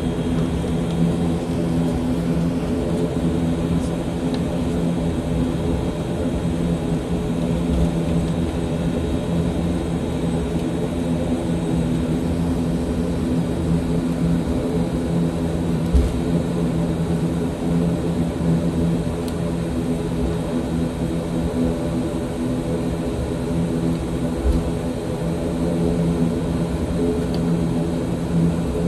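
Cabin sound of an ATR 72-600's turboprop engine and propeller running at low power while the aircraft taxis: a steady, even drone with a strong low hum. Two brief low thumps come in the second half.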